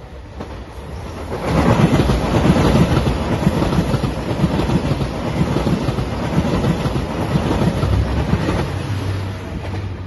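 JR Shikoku 2700 series diesel multiple-unit train passing close by, a heavy rumble with a running clickety-clack of wheels over rail joints. It grows loud about a second and a half in and dies down near the end.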